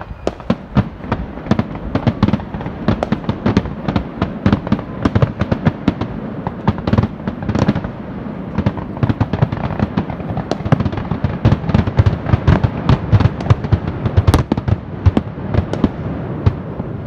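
Fireworks going off in a dense, rapid barrage of sharp bangs and crackles, several a second, thinning out slightly near the end.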